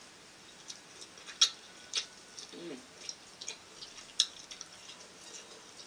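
Crab legs being cracked and eaten up close: scattered sharp clicks and cracks of shell, about a dozen, three of them louder. A brief murmur of a voice about two and a half seconds in.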